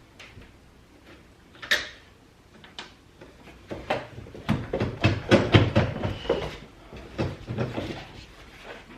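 Clicks and knocks of a hand tool and metal hardware working on the mirror's mounting nuts inside a truck door: a sharp click about two seconds in, then a busy run of irregular clattering knocks from about four seconds in that thins out near the end.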